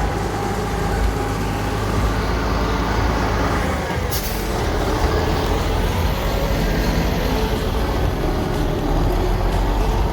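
Heavy diesel truck engine running loudly as a truck pulls away, with a short hiss of air from the air brakes about four seconds in.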